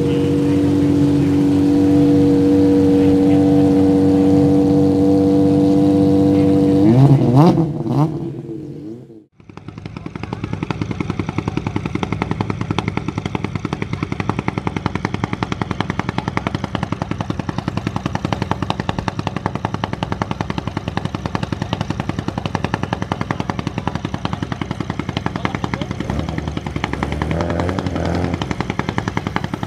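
BMW E46 Compact rally car's engine idling with a steady note, revved once about seven seconds in, then cut off. After that a second rally car's engine idles with a rapid, even popping rattle, like machine-gun fire.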